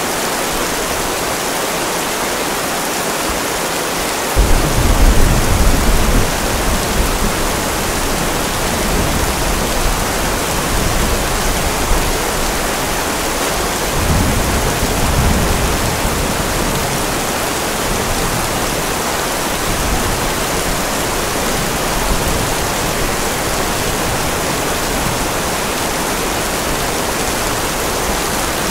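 Steady rain with an even hiss, and rolls of thunder: a sudden low rumble about four seconds in, the loudest moment, and a softer one about halfway through.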